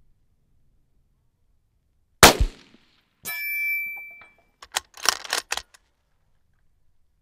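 A single shot from a Ruger Precision Rifle with a Proof Research carbon-fibre .308 barrel, with a short echo. About a second later a metallic ring fades away, and then comes a quick run of metallic clicks and clacks as the bolt is worked.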